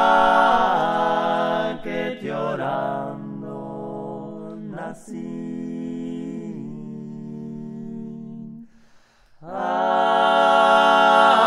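Male vocal trio singing a cappella in close polyphony, holding long sustained chords of a traditional Galician song. The voices change chord a few times, drop out briefly about nine seconds in, and then come back in loudly.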